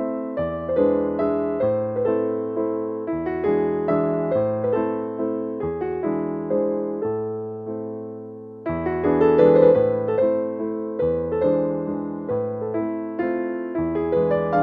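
Background music: a gentle piano melody, one phrase fading about eight and a half seconds in before the next begins.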